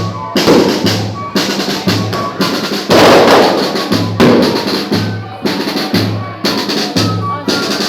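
Banda de pífanos, a fife-and-drum band, playing: bass drum and snare strike a loud, driving rhythm, with thin high fife notes faintly over the drums.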